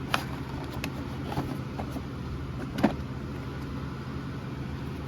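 A few short clicks and taps as board-game components are handled and lifted out of the box, the loudest about three seconds in, over a steady low hum.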